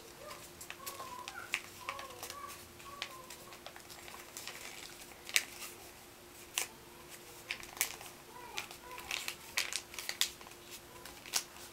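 A sheet of white paper being folded and creased by hand: soft rustling with irregular crinkles and crackles, a few sharper ones about five and a half and six and a half seconds in, over a faint steady hum.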